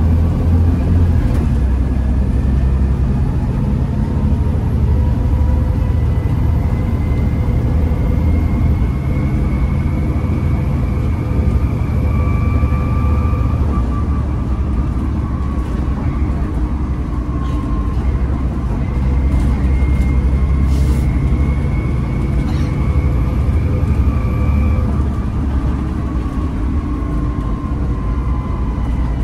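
Volvo B7TL double-decker bus on the move, heard from inside the passenger saloon: its six-cylinder diesel gives a steady low rumble over road noise. A whine rises slowly in pitch twice as the bus picks up speed, then falls near the end, with a few light rattles.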